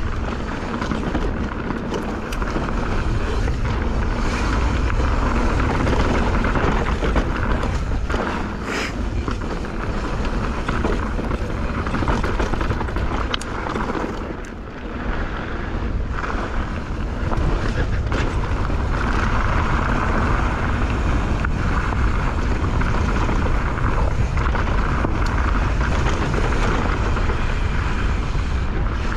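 Steady rush of wind on the camera microphone and rumble of a mountain bike's tyres on a fast trail descent, with occasional sharp knocks from the bike.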